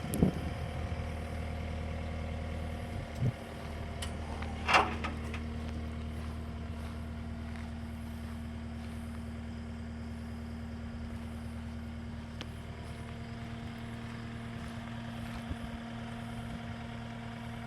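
Cat 262D skid steer's diesel engine idling steadily, with one brief, louder clatter about five seconds in.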